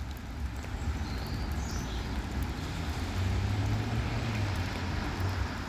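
Steady outdoor background noise: a low rumble with a hiss over it, and a few faint high bird chirps about a second in.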